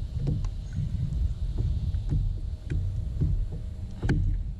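Wind buffeting the microphone and water slapping against the kayak hulls: a steady low rumble with scattered small knocks and ticks, and a sharper click about four seconds in.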